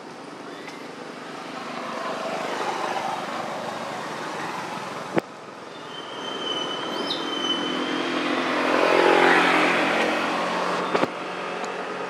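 Vehicle going past on a road: traffic noise swells, then peaks in a louder pass with an engine hum about three quarters of the way through. There is a sharp click about five seconds in and a double click near the end.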